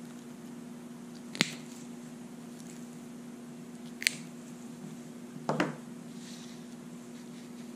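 Hand wire cutters snipping through plastic wrapping on an extension cord splice: two sharp snips about two and a half seconds apart, then a brief clatter, over a steady low hum.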